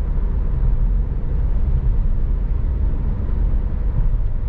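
Steady road and engine noise inside the cabin of a car moving at highway speed: a low, even rumble.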